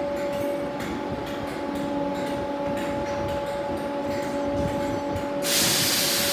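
Merseyrail electric multiple unit standing at the platform, its equipment giving a steady hum of several held tones while its sliding doors close. About five and a half seconds in, a loud hiss of air starts suddenly and holds, as the train readies to depart.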